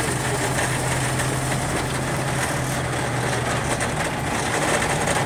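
Half-track's engine running steadily as it drives slowly, heard from inside the cab, with a constant low hum.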